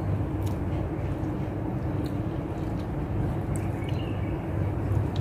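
Steady low hum with a few faint clicks of cooked crab shells being picked apart by hand.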